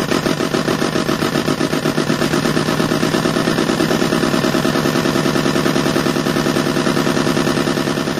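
Programmable electronic engine sound unit for a model boat, playing a simulated engine through its speaker: a steady, even, fast chugging beat, like an engine ticking over.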